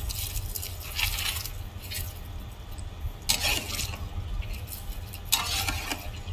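Chopped dried stingray tipped into a pot of simmering tomato gravy and stirred with a ladle: a few short scraping, clinking strokes with pauses between them, over a low steady hum.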